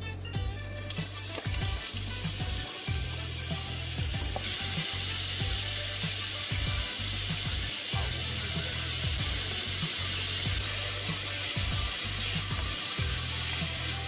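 Shredded burdock root and carrot sizzling in hot oil in a frying pan: the sizzle starts about a second in as the vegetables go into the pan and is stirred with chopsticks. It grows louder a few seconds in and eases a little near the end.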